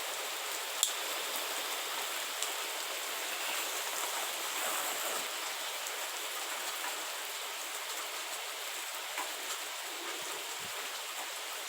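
Steady rain falling, an even hiss with a few single drips tapping now and then.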